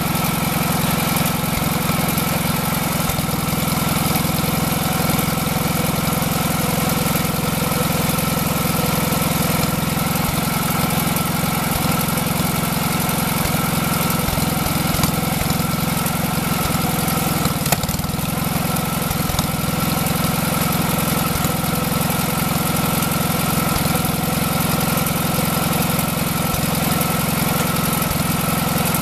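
Engine of a homemade hydraulic log splitter built from old tractor parts, running steadily at an even idle-like speed, with two brief knocks about halfway through.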